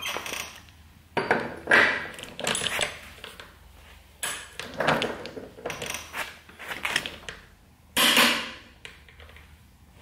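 Irregular metal knocks and clanks, about a dozen of them, from a large torque wrench being worked on a motorcycle's rear axle nut.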